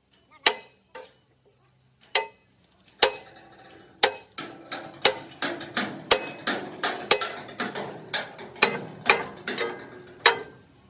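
Hammer blows on the steel sheet metal of a truck's body, each with a short metallic ring. A few spaced strikes come first, then a steady run of about two to three blows a second from about four seconds in.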